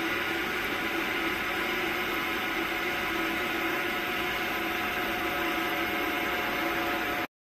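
Steady machinery hum with a whir and a few constant tones, unchanging, then cut off abruptly near the end.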